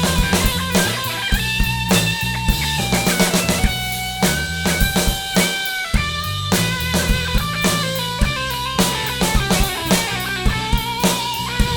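Rock band playing an instrumental passage: a guitar melody of held notes stepping in pitch over a driving drum kit with bass drum and snare.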